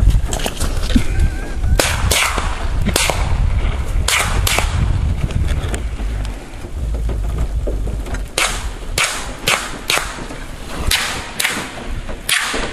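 About a dozen sharp gun cracks as targets are shot: a few scattered shots a couple of seconds in, then a quicker string of shots near the end. Wind rumbles on the microphone underneath.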